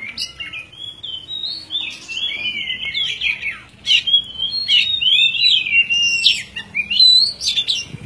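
Oriental magpie-robin (kacer) singing a rapid, continuous, varied song of sharp whistled notes, slurs and clicks, in full 'gacor' (vigorous) song.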